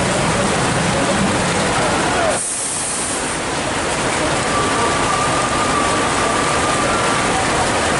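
Heavy rain pouring and floodwater rushing across the road in a steady roar, with vehicle engines running under it. A faint steady whine joins about halfway through.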